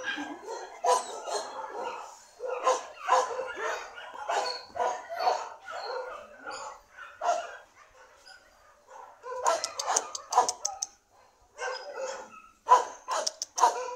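Dogs barking and yipping in a rapid run of short barks, pausing briefly a little past halfway, then barking again in short bursts.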